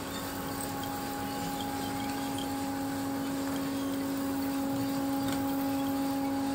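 A machine running steadily: an even hum made of a few fixed tones over a constant whirring noise, with no breaks, growing slightly louder.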